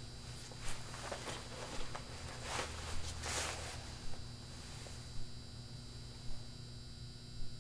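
Quiet room ambience: a low steady hum with a soft tick about once a second and a couple of brief rustles, one about a second in and a longer one around three seconds in.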